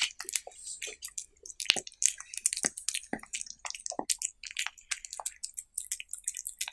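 Cat eating raw meat off a wooden stick, heard close up: irregular wet licking, chewing and smacking clicks, several a second.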